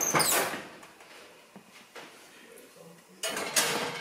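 Oven door opening with a burst of metal noise, then about three seconds in a ceramic baking dish clattering and sliding onto the oven's wire rack.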